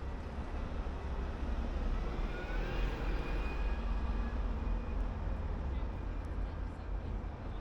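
Low rumble of a passing motor vehicle that swells from about two to five seconds in, with a faint rising whine as it goes by.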